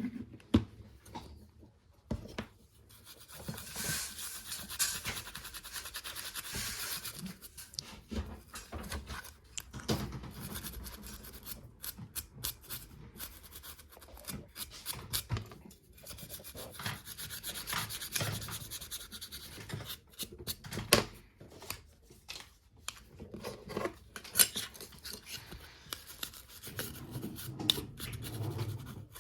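Rubbing and scraping strokes on a small hard object, coming in stretches of a few seconds, with sharp clicks and taps in between: handwork on the phone's body, such as cleaning or sanding.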